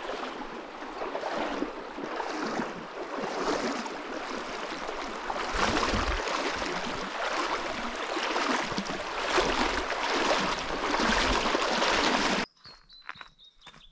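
Shallow river running over stones and gravel, a steady rush of water. Near the end it cuts off abruptly, and a few short bird chirps follow.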